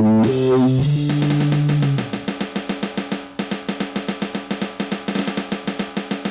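Band music: held instrumental notes for about two seconds, then a fast, steady drum beat takes over.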